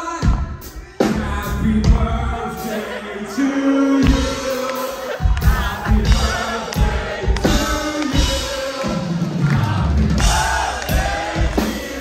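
Metal band playing live, with heavy drums and a sung vocal line. The full band crashes in about a second in after a brief drop.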